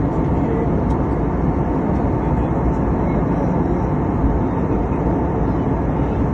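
Aeroplane engine and airflow noise heard inside the passenger cabin: a steady, loud, even rumble, heaviest in the low range.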